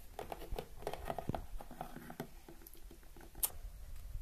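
Plastic toy animal figurines tapped and hopped along a hard tabletop: a quick, irregular patter of small clicks, thinning out after about two seconds, with one sharper click near the end.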